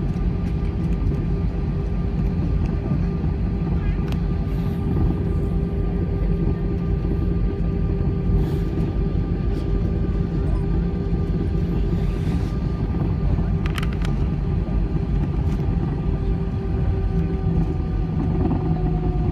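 Airbus A320's jet engines running at taxi idle, heard inside the passenger cabin: a steady low rumble with a steady whine over it. The whine slides slowly lower near the end.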